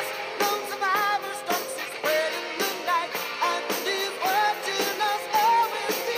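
Pop-rock song with a lead singer over a steady drum beat.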